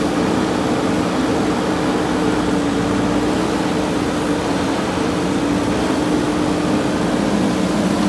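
JCB backhoe loader's diesel engine running steadily with an even hum while the front loader bucket is worked.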